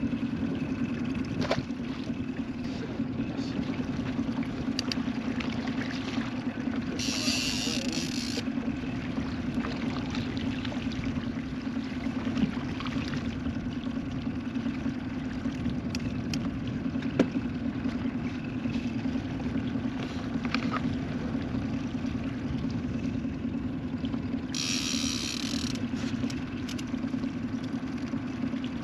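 Outboard boat motor running steadily at low trolling speed, a constant hum. Twice, a short high-pitched hiss of about a second cuts in over it, once about a quarter of the way in and once near the end.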